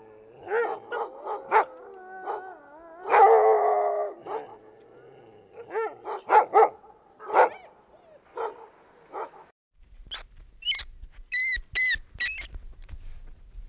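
Shiba Inu dog giving a string of short barks and yips, with a longer wavering whine about three seconds in. Near the end a monkey gives a few short high-pitched squeaks.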